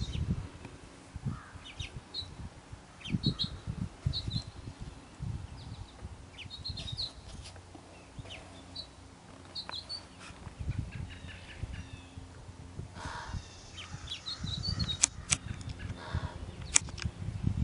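Small songbirds giving short, high chirps here and there, over a low, gusty rumble of wind on the microphone.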